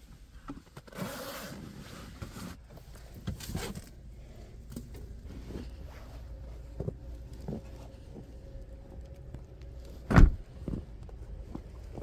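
Coat fabric rustling, then footsteps crunching in fresh snow, with one loud thump about ten seconds in.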